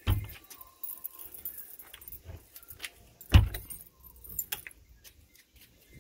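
Scattered sharp clicks and knocks, the two loudest right at the start and about three and a half seconds in, with smaller ticks between.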